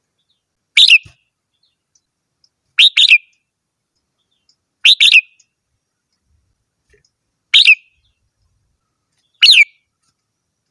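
Red-whiskered bulbul singing: five short, bright warbled phrases, about two seconds apart, with silence between them.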